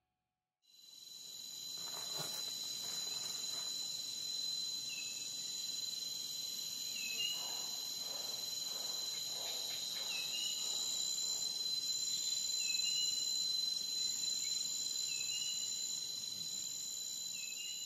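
Steady high-pitched chorus of insects such as crickets, with a short chirp that repeats about every two and a half seconds. It fades in about half a second in, after a moment of silence.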